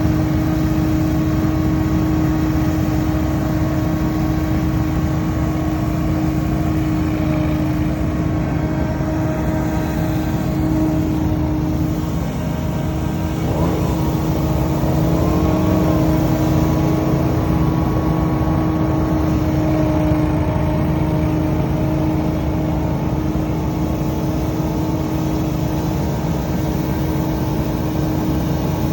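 Scag Windstorm stand-on leaf blower running steadily, its 37 hp engine and fan giving a loud constant hum with a steady whine. About halfway through, a brief wavering tone rises over it.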